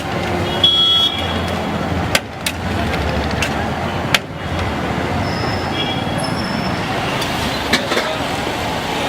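Busy street traffic din, vehicles running and passing, with a few short high horn toots, one about half a second in and more around six seconds in. Scattered sharp clicks and knocks run through it.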